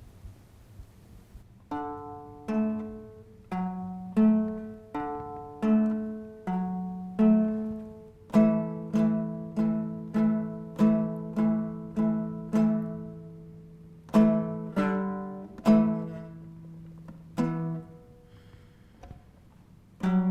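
A plucked string instrument playing a slow tune of single notes, each note struck sharply and fading away. The notes begin about two seconds in and stop a couple of seconds before the end.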